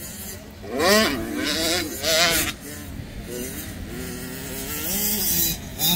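Dirt bike engine revving up and easing off over and over, its pitch rising and falling, loudest about a second in and again just past two seconds.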